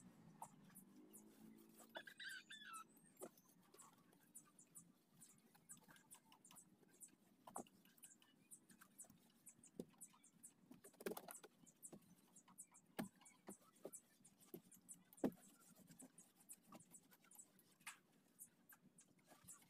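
Near silence with faint, scattered, irregular clicks and ticks, and a brief chirp about two seconds in.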